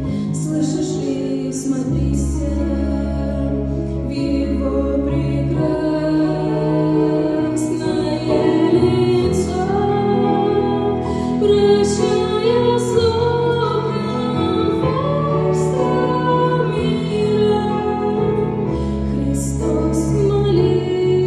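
Slow Christian song: a woman singing over instrumental accompaniment with sustained low bass notes.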